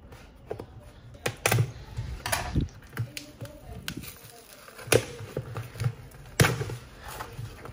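A cardboard shipping box being opened by hand: packing tape cut and peeled and cardboard flaps torn back, with scattered sharp taps and rustling.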